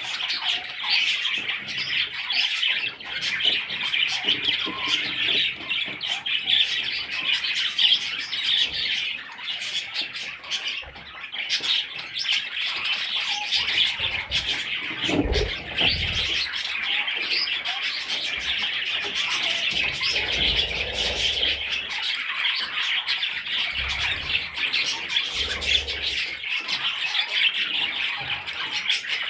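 Budgerigars chirping and squawking in a dense, continuous chatter, with a short low thump about halfway through.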